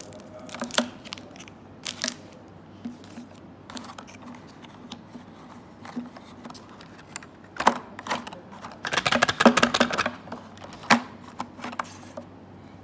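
Small kraft-cardboard box being handled and opened: scattered taps and light scrapes, a few sharper knocks, and a quick run of scraping clicks about nine seconds in.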